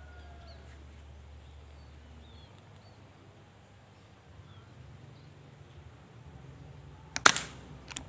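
Faint chirps of small birds, then about seven seconds in a single sharp shot from a scoped PCP air rifle, followed just under a second later by a fainter click.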